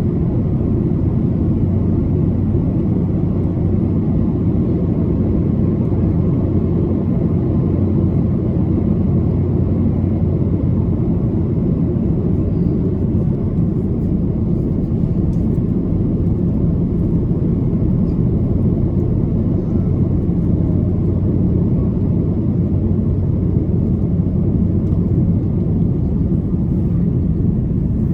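Steady cabin noise of an Airbus A330-300 airliner on approach, heard inside the cabin from a window seat. It is a low, even rumble of airflow and its Rolls-Royce Trent 700 engines, with a faint steady hum.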